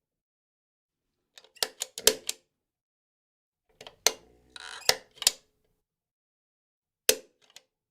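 A light switch flicked on and off: sharp clicks in short groups of two to four, about a second and a half in, again around four to five seconds in with a brief scraping rustle among them, and once more near the end, with silence between.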